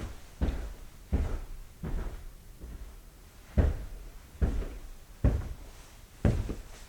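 Footsteps walking on carpet: dull, soft thuds about one step every three-quarters of a second, with a short pause after the first three steps.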